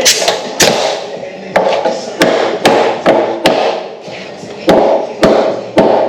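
Hammering on wood framing: about ten sharp strikes in an uneven rhythm, some coming in quick pairs, each with a short ring after it.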